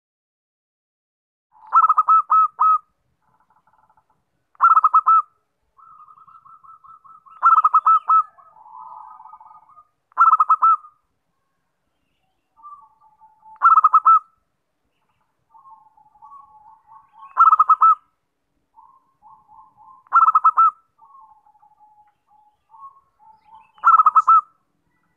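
Zebra dove (perkutut) singing its cooing song: a short, rapid run of notes repeated eight times, about every three seconds, with softer, lower stuttering notes in between.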